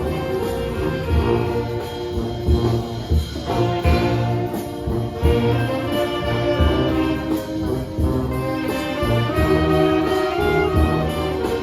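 Filipino brass band (banda) playing a Manila sound pop medley live. Sustained horn chords carry the tune over a steady low bass beat.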